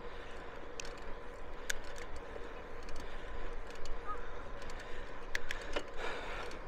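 Wind rumbling on the microphone of a moving bicycle, with a faint steady hum and a few scattered light clicks and ticks.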